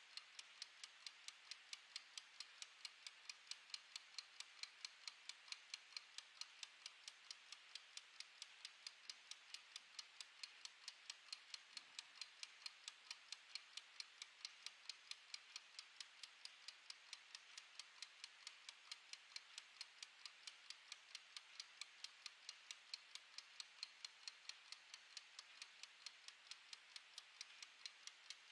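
Clockwork of a mechanical wind-up kitchen timer ticking faintly and evenly as it counts down, about four ticks a second.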